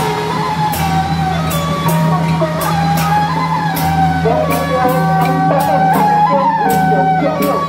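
Beiguan procession band playing: a shrill double-reed suona melody over gongs and cymbals struck about twice a second, with drums.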